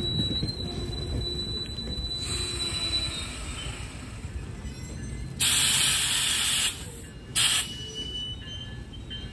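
NJ Transit passenger coaches rolling past at a grade crossing: a steady rumble of wheels on the rails, with a thin high squeal fading out in the first few seconds. About halfway through comes a loud burst of hiss lasting just over a second, then a second short one.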